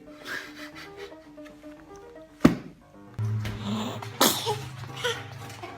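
A baby sneezing once, about four seconds in, over background music. A sharp click comes a little before it.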